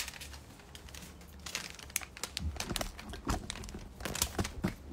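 Clothing and fabric rustling and crinkling as it is handled, with irregular clicks and knocks scattered through.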